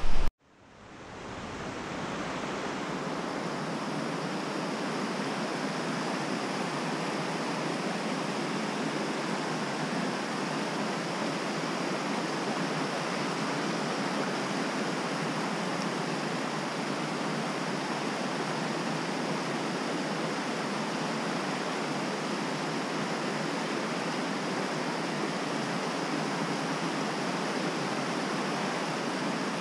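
Rushing water of a mountain trout creek: a steady, even rush that fades in over the first two seconds and then holds.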